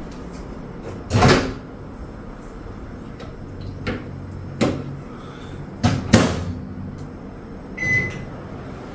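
Microwave oven door clunking open and shut a few times, followed by a single short keypad beep near the end.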